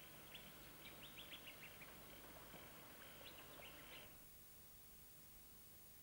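Faint bird chirping: a quick string of short, high calls over a quiet background, which cuts off suddenly about four seconds in, leaving only faint hiss.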